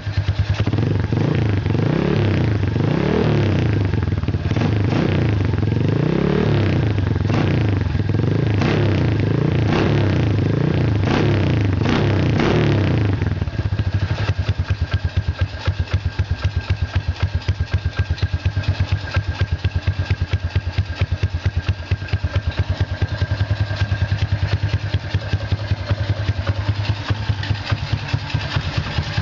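Honda Wave 125 single-cylinder four-stroke, built with a ported head, stage 1 cams, 57 mm bore and rejetted carburettor, through a KITTI racing exhaust. For about 13 seconds it is revved in quick repeated blips. It then settles to a steady idle with distinct, regular firing pulses.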